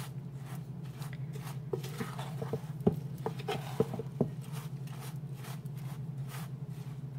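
A wooden spoon stirring a dry, crumbly seitan meatball mix of vital wheat gluten, breadcrumbs and herbs in a bowl: repeated soft scraping strokes, with a few sharper knocks of the spoon against the bowl around the middle. A steady low hum runs underneath.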